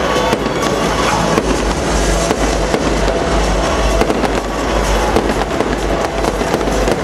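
Fireworks going off without a break: a dense run of many sharp pops and crackles as aerial shells burst and rise.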